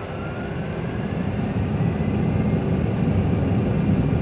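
Simulated Boeing 737 Classic jet engines spooling up for takeoff: a whine rising in pitch over the first two seconds and a low rumble that grows steadily louder as thrust comes up.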